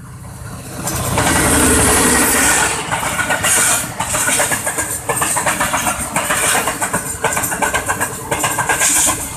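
Diesel-hauled passenger train passing close by at speed: the locomotive's engine noise swells about a second in as it arrives, then the coaches follow with a steady, rhythmic clatter of wheels on the rails.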